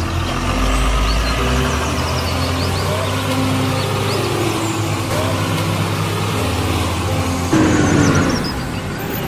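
Truck engine running steadily, with birds chirping high above it. About seven and a half seconds in, the engine drone gives way to a short burst of noise.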